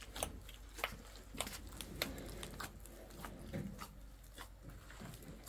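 Scattered light clicks and taps at an irregular pace, a few each second, from small objects being handled.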